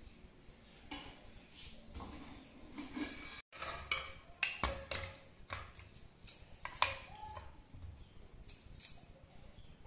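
Steel pot being handled, then a steel ladle clinking and scraping against the steel pot while stirring mutton paya curry, with a run of sharp clinks in the second half.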